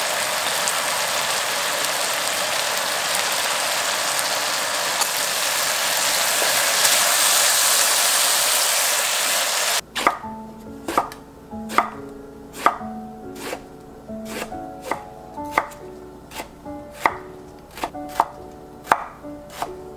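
Eggplant and minced meat sauce sizzling in a wok, a steady hiss that stops suddenly about halfway through. Then a chef's knife chops eggplant on a wooden cutting board in irregular sharp strokes, one or two a second.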